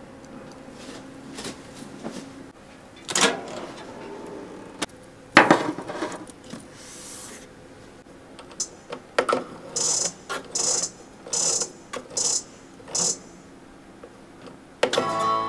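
A metal loaf pan knocking a couple of times as it is set into a Balmuda oven, then the oven's control dial giving a run of five or six short, high clicks as it is turned to 170°C. Near the end a pitched electronic chime starts as the oven begins baking.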